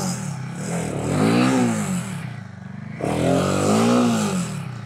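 Royal Enfield Himalayan 450's single-cylinder engine revved hard in two surges, pitch climbing and falling each time, the second about three seconds in. The rear tyre is spinning in loose dirt without grip as the bike fails to climb out of a ditch.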